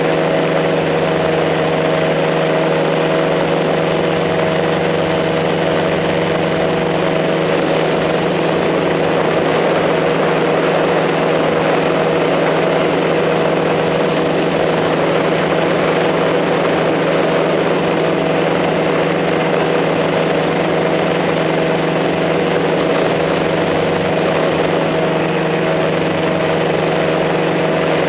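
Multirotor drone's motors and propellers humming steadily, a constant drone of several held tones over a rushing haze.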